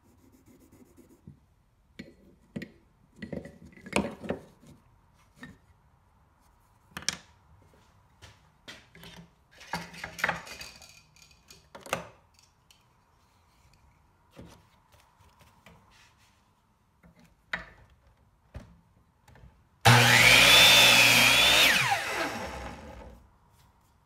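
Light knocks and rustles from handling tools and wood, then a miter saw switched on with a rising whine, running loudly for about two seconds as it cuts a bloodwood block, and winding down with a falling whine.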